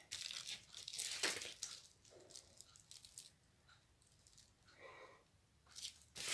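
Quiet rustling and light taps of a diamond painting canvas and a ruler being handled while the canvas is measured, mostly in the first second and a half, then fainter.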